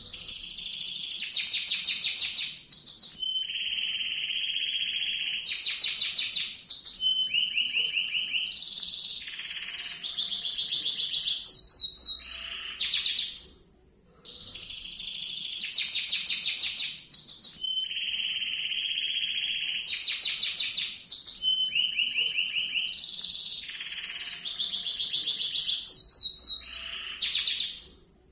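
Domestic canary singing a long rolling song of rapid trills mixed with held whistled notes. It comes in two bouts of about thirteen seconds each, with a brief pause between them.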